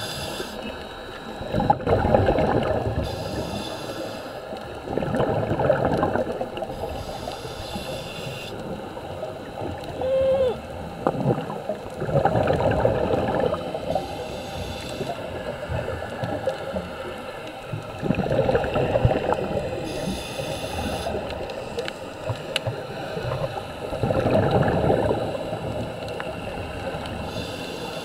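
Scuba diver breathing through a regulator underwater: five rushes of exhaled bubbles a few seconds apart, each lasting a second or two, with a fainter hiss of inhaled air between them.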